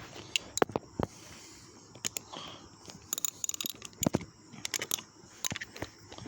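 Irregular clicks and knocks of hand tools and small metal parts being handled while the ignition coil bolts of a lawn mower are worked on, with a quick flurry of clicks about three seconds in.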